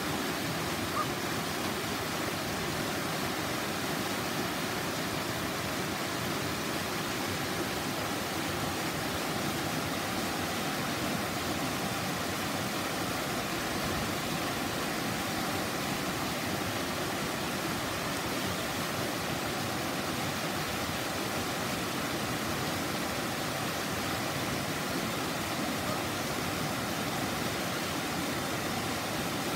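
Mountain river rushing over rocks and small rapids, a steady, unbroken rush of water.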